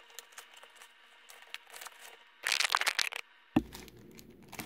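Foil-wrapped trading-card packs and the cardboard hobby box being handled, crinkling and crackling with scattered small clicks. A louder burst of crinkling comes about two and a half seconds in.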